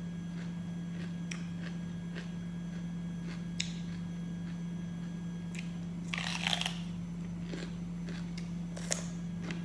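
Crisp crunching of a raw green bell pepper being bitten and chewed, as scattered sharp snaps with one longer burst of crackling crunch about six seconds in. A steady low hum runs underneath.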